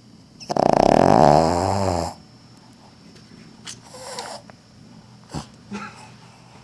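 Cavalier King Charles Spaniel snoring in her sleep: one loud snore starting about half a second in and lasting about a second and a half, dropping in pitch. A fainter breath follows around four seconds in, then a couple of soft clicks.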